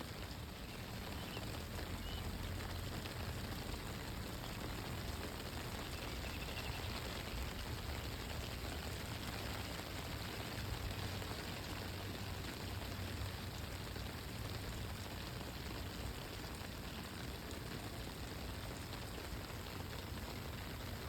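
Steady rain falling: an even hiss of drops with a low rumble underneath, unchanging throughout.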